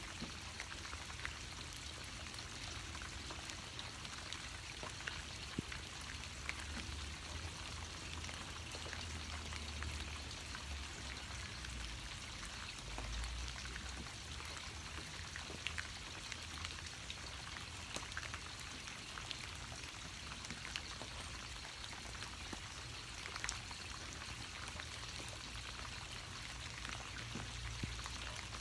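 Steady rain falling: an even hiss with many scattered sharp ticks of single drops striking nearby surfaces.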